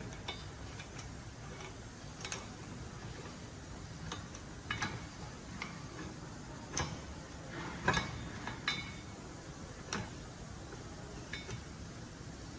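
Light metal clicks and knocks at irregular intervals as a truck brake caliper carrier is worked onto its greased guide pins.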